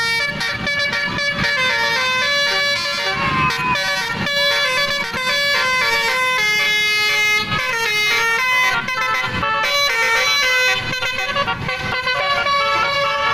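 Basuri telolet horn, a multi-tone bus horn, playing a quick tune: a run of horn notes stepping up and down in pitch, with a couple of short breaks.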